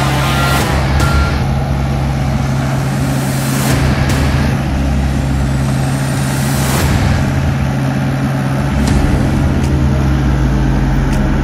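John Deere 60G mini excavator working, its diesel engine running steadily under load. Its travel alarm beeps for about the first second, and a few sharp knocks come through as the bucket and thumb work roots and stumps.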